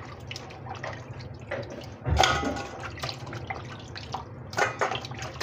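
Chopped raw pork being mixed by hand in a steel bowl: wet squelching with quick clicks and clinks, loudest about two seconds in.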